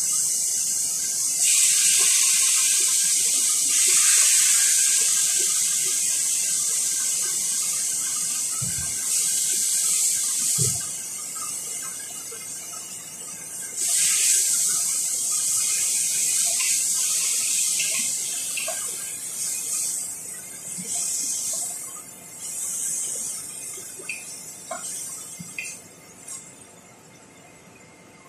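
Food sizzling in hot oil in a pot on the stove, a loud steady hiss that swells again when the pot is stirred with a wooden spoon about halfway through and then dies down. Two dull knocks sound in the first half.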